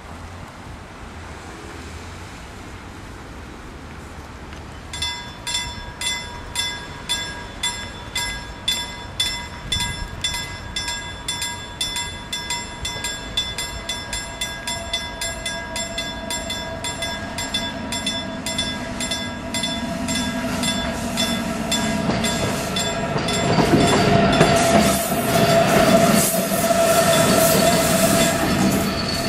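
A level-crossing warning bell starts ringing about five seconds in, about two strokes a second. A VR Sr2 electric locomotive's running noise, with a steady tone, grows louder and passes close by near the end.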